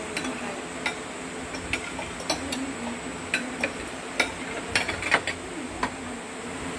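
Spoons and forks clinking and scraping against ceramic plates as people eat: a dozen or so irregular light taps, over a low steady hum.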